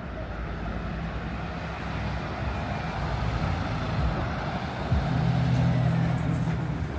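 A motor vehicle's engine passing close, its low steady hum growing louder to a peak about five seconds in.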